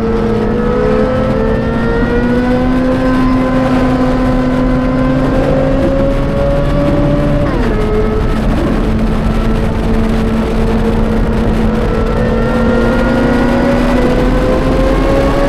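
Sports car engine under hard acceleration, its pitch climbing steadily, dropping sharply at a quick upshift about halfway through, then climbing again.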